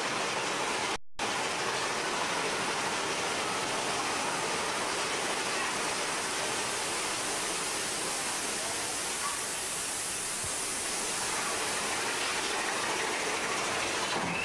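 Steady rushing of falling water from a waterfall inside the ride's cave. The sound cuts out for a moment about a second in.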